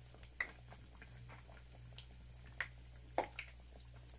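Breaded bread sandwiches shallow-frying in oil in a pan over low heat: a quiet background broken by a handful of sharp crackles and clicks, the loudest about three seconds in.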